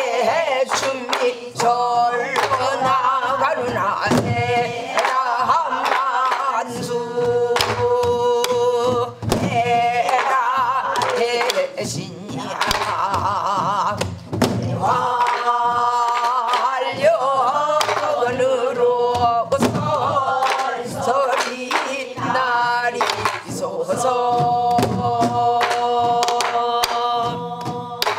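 A woman singing a Korean folk song in pansori style, with long, wavering held notes, beating out the rhythmic cycle on a buk barrel drum with stick strokes between the phrases.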